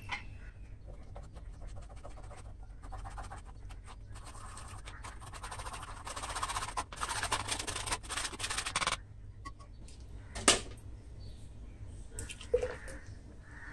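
A steel spoon scraping and pressing raw mango pulp through a plastic mesh strainer, a gritty scratching that grows louder a few seconds in and stops abruptly about nine seconds in. Two short sharp taps follow, about ten and twelve seconds in.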